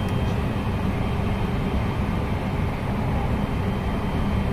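Running noise of a 223 series 6000-subseries electric train, heard from inside the car: a steady rumble of wheels on rail.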